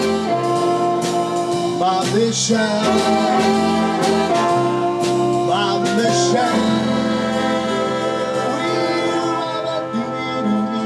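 Community big band of trumpets, trombones and saxophones playing, with sharp percussion strikes over the first half. From about six seconds in the band holds one long sustained chord.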